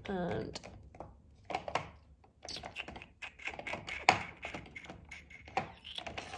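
Quick, irregular clicks and light knocks of makeup brushes and product cases being handled and sorted through, densest in the middle stretch.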